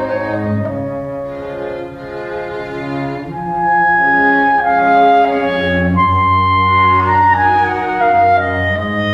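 Clarinet and string quartet (two violins, viola and cello) playing a slow classical adagio in sustained notes, the music growing louder about a third of the way in. A long high note is held about six seconds in, then the line steps downward.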